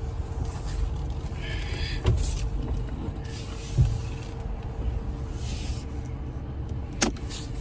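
Car moving slowly: a steady low engine and tyre rumble with a faint steady hum over it, a thump about four seconds in and a sharp click near the end.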